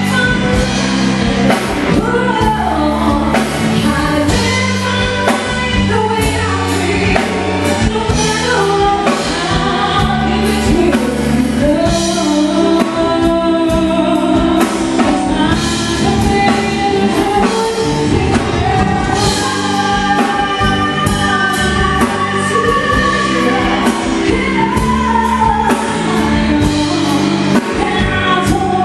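Live band music: a woman sings lead into a microphone over an amplified band with a steady drum beat.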